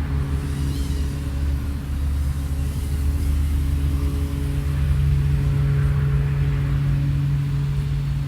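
A 3.5-inch FPV quadcopter's motors and propellers humming steadily, the tone shifting about halfway through as the throttle changes.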